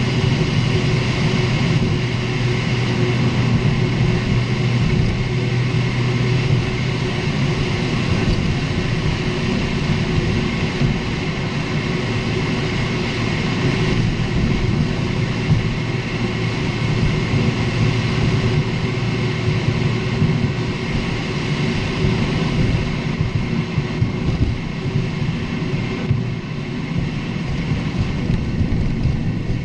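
Lexus IS250 (GSE20) driving, with steady road and engine noise and scattered small knocks from the suspension. Over bumps the suspension makes flapping, rattling and creaking noises, which the owner suspects come from the stabilizer links.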